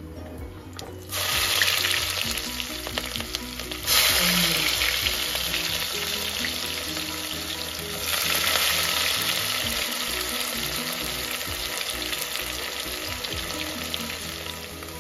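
Hot oil with whole spices sizzling in an aluminium pressure cooker. The sizzle swells about a second in, jumps louder at about four seconds, and surges again near eight seconds as chopped onions are dropped into the oil.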